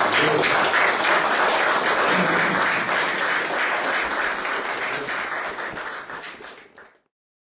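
Audience applauding, a dense clatter of many hands that slowly weakens and then cuts off suddenly about seven seconds in.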